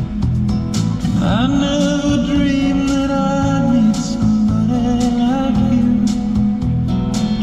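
Greek popular song with a male voice singing over guitar and a steady beat; the voice slides up into a long held phrase about a second in.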